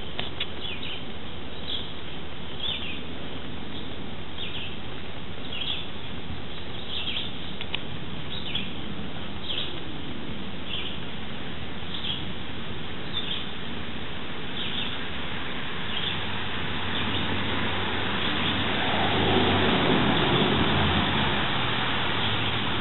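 A bird chirping, one short high call about every second, over a steady outdoor noise bed. In the last few seconds a broader noise with a low hum swells up and fades a little.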